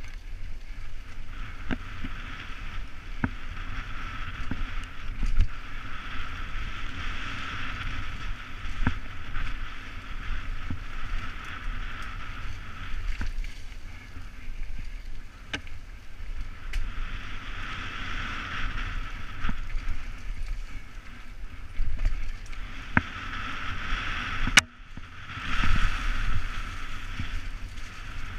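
Downhill mountain bike riding fast down a rough dirt forest trail, heard from a helmet-mounted camera: a low rumble of tyres over the ground, a hiss that swells and fades, and frequent sharp knocks and rattles from the bike over bumps.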